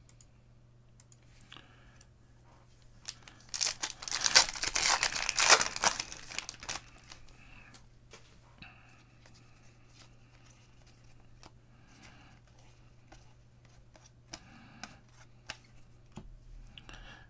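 A football card pack wrapper torn open, a rough tearing and crinkling about three and a half seconds in that lasts around three seconds. After it come scattered soft clicks as the cards are handled and flipped through.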